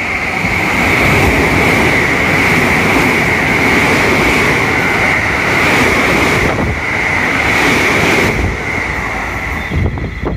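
A train passing close by at speed: a loud, steady rush of wheels on rail with a steady high-pitched band over it. It swells in the first second and eases off in the last couple of seconds as the train goes by.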